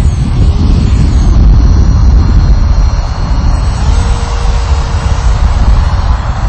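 Wind buffeting the microphone, over the faint whine of a Sky Surfer RC glider's brushless outrunner electric motor and propeller as the glider passes low and climbs away.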